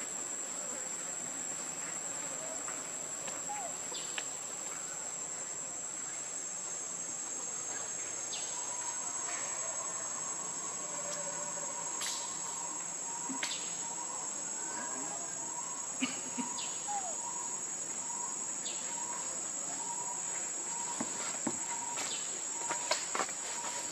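Steady, high-pitched drone of forest insects, with a second, lower steady tone joining about nine seconds in. A few brief faint clicks are scattered through it.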